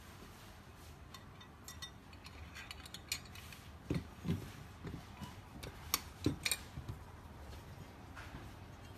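Metal parts of a lawn mower jack lift clinking and knocking as they are handled and fitted together: scattered light clicks with a few dull knocks, busiest around the middle.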